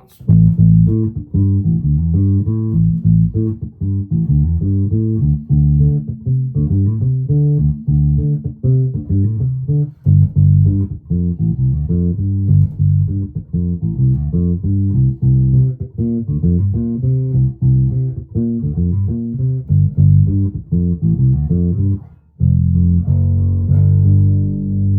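1996 Alembic Epic four-string electric bass played through its active preamp with the bass control boosted all the way: a steady run of plucked notes, heavy in the low end but not overpowering. The playing stops briefly about 22 seconds in, then a single low note is struck and left ringing.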